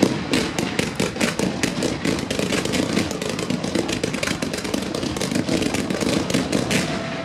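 Fireworks barrage: a dense, unbroken string of sharp bangs and crackling, several a second, as fountains, comets and low bursts fire together.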